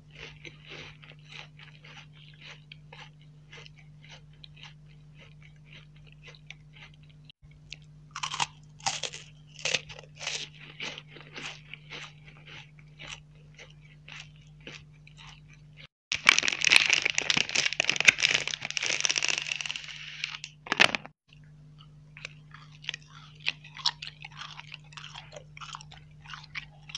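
Close-miked eating of sweets: steady chewing with many small, crisp crunches, and a louder, dense run of crunching about two-thirds of the way through.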